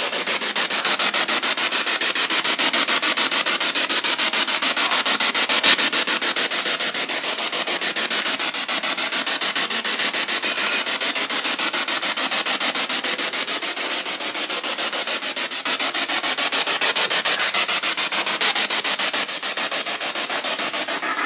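Spirit box hissing with radio static as it sweeps rapidly through radio frequencies, the noise chopped into many quick pulses a second. A single sharp click comes about six seconds in.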